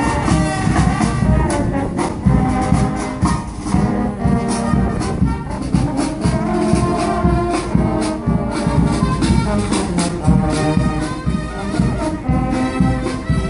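Brass marching band playing a march: trumpets and sousaphones over a steady drum beat.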